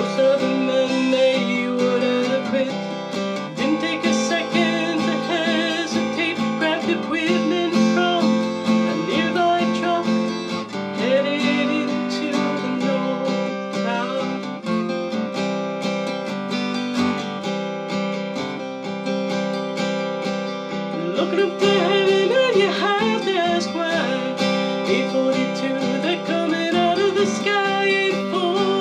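Acoustic guitar playing a folk song, with a wavering melody line sung or played over the chords at times.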